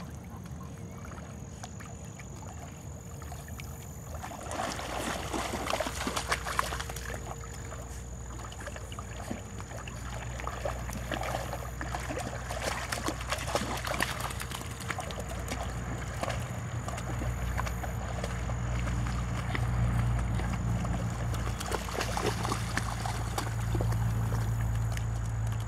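Pond water sloshing and splashing as a Labrador retriever puppy paddles through it, busiest from about four seconds in, over a low steady rumble.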